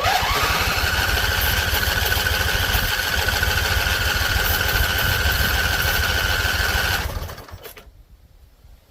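Husqvarna Z254 zero-turn mower's engine turning over for about seven seconds, with a whine that rises as it starts and then holds steady, before stopping suddenly. The engine has been flooding.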